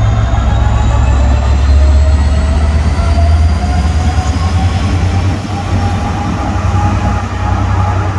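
A Class 66 diesel locomotive's two-stroke V12 engine runs as the loco rolls slowly past at close range: a deep rumble that eases about five seconds in. Faint whining tones slowly rise in pitch over it.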